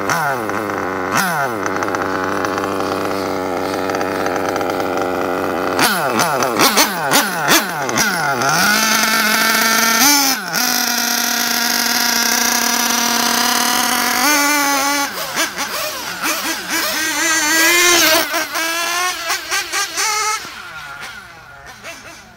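RB 7T nitro engine in an RC car, revving hard with its pitch sweeping up and down again and again as the throttle is opened and closed, and holding a steady high note for several seconds in the middle. It gets quieter near the end as the car drives away.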